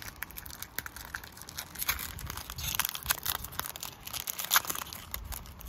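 Foil Pokémon booster-pack wrapper crinkling and tearing as it is opened by hand, a run of irregular crackles.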